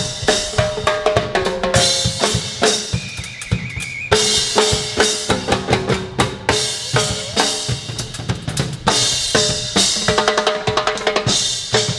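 Music with a busy drum-kit beat under short melodic notes.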